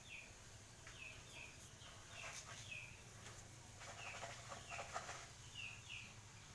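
Faint outdoor bird calls: short, high, falling chirps repeated in twos and threes, with a couple of harsher, rougher calls in the middle.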